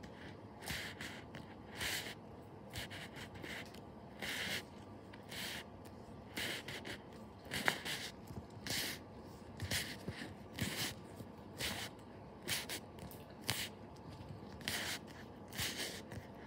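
Stickers and paper handled in a sticker book: short, scratchy rustles and scrapes, irregular, about one or two a second.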